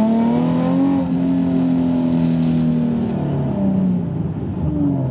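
Nissan 370Z's 3.7-litre V6 engine under way, its note rising over the first second, holding steady, then dropping off about three seconds in.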